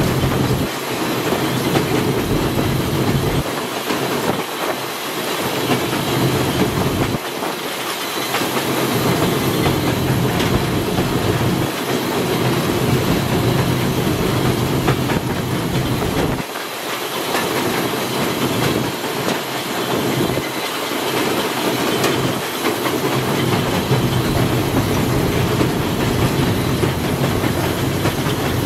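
Inside the cab of Everett Railroad 2-6-0 steam locomotive No. 11 as it runs along the line: a steady rumble and rattle of the locomotive and its wheels on the rails.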